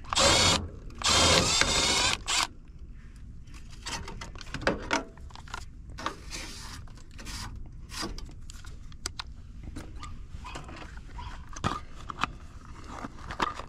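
Two short runs of a cordless drill or driver near the start, one brief and one a little over a second long, taking out the part being removed from the electric heat unit. After them come scattered small clicks and rattles of parts and tools being handled.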